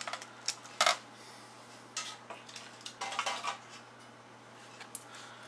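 Sharp plastic clicks and rattles from an LCD TV's circuit boards being handled and their cable connectors unplugged. A few separate clicks come in the first second, with a quicker cluster about three seconds in.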